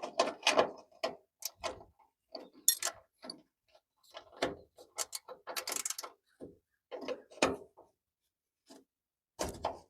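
Hand tools working on a stubborn bolt on an old truck's body: irregular metallic clicks and clanks, coming in quick clusters with short pauses.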